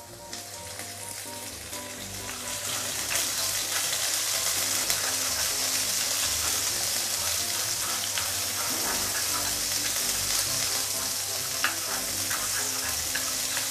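Sliced shallots frying in vegetable oil in a non-stick wok: a steady sizzle that grows louder over the first few seconds. A few light clicks come from wooden chopsticks stirring them.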